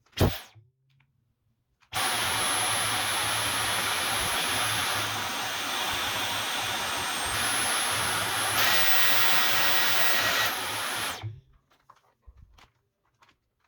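Dyson V11 cordless stick vacuum switched on, running for about nine seconds, then cut off. Its steady rush carries a high whine that steps down in pitch and back up. Then, about two-thirds of the way through, it grows louder, with a second, lower whine added. A short knock comes just before it starts.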